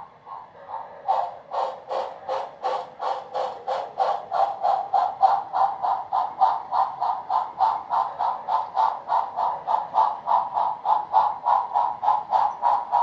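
Rhythmic steam-exhaust chuffs from an O scale model steam locomotive's sound system, about four a second. They get louder about a second in and then keep an even beat.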